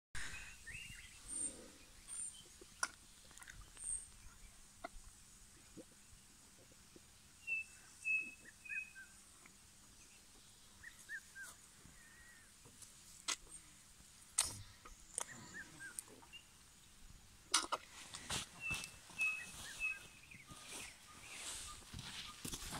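Scattered sharp cracks and crunches from an elephant feeding on marula fruit, with short bird chirps and whistles in between.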